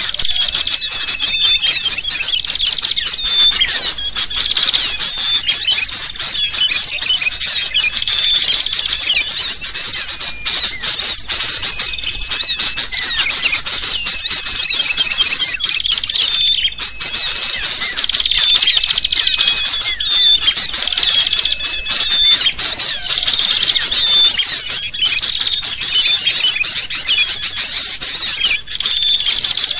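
Dense, continuous chorus of noisy sooty-headed bulbul (kutilang) calls mixed with the chirps of small birds: a bird-lure recording used to draw wild birds in.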